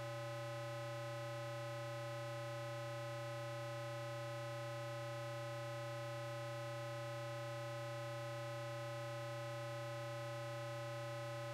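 Eurorack modular synthesizer oscillators run through a passive ring modulator, producing a steady low electronic drone that holds one pitch with many overtones and does not change.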